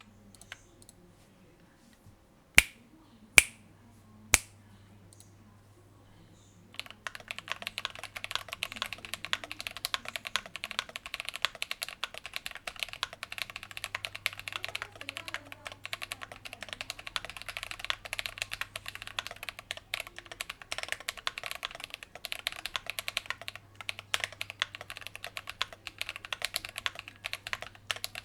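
Three sharp, loud clicks a few seconds in, then, from about a quarter of the way through, continuous fast typing on an Idobao ID67 mechanical keyboard with lubed Akko CS Ocean Blue tactile switches: a dense, muted clacking of keystrokes.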